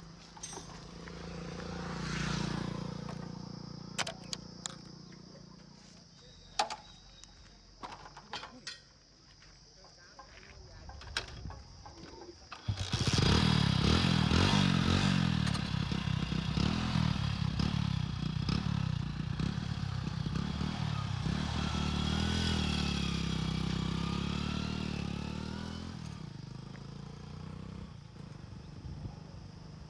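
A few scattered clicks and a low hum, then an engine starts abruptly about twelve seconds in and runs loudly, its pitch wavering, before dropping away about four seconds before the end.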